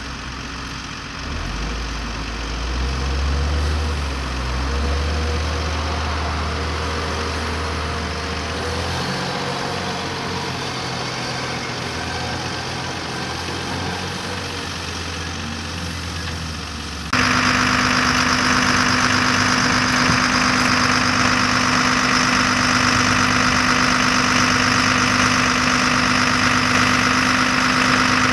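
A vehicle engine idling steadily. Just past halfway the sound jumps abruptly louder into a steady drone with a constant hum and more hiss.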